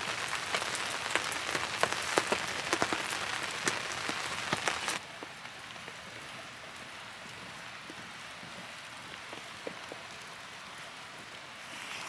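Rain falling, with many large drops striking close by as sharp taps. About five seconds in it drops to a quieter, steady hiss of rain with only a few taps.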